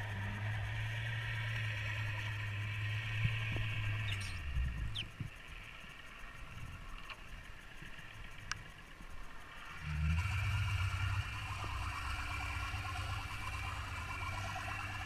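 A steady low motor hum heard underwater. It cuts out about four and a half seconds in and comes back abruptly about ten seconds in, with a few faint clicks in between.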